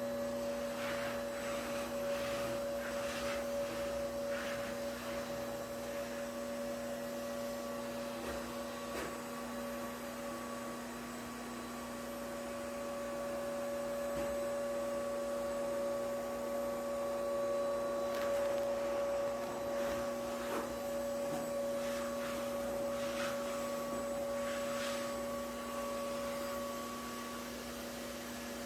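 Vacuum cleaner running with a steady motor whine and a few short hissing swells now and then.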